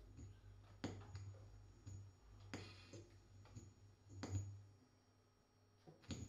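Near-silent passage of free-improvised music for saxophone, double bass and electronics: a few soft, scattered clicks and taps over a low steady hum.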